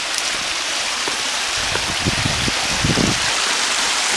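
Stream water rushing over rocks: a steady, even noise, with a few low rumbles about two and three seconds in.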